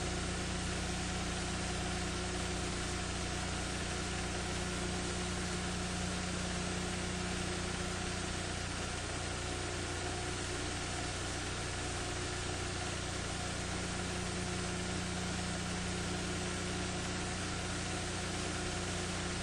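Steady hiss with a constant low hum underneath, unchanging throughout, with no other sounds.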